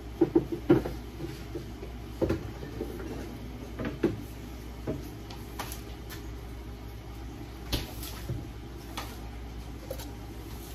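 A utensil knocking against a frying pan as pieces of browning chicken are turned: a quick cluster of clatters in the first second, then single knocks every second or two, over a steady low hum.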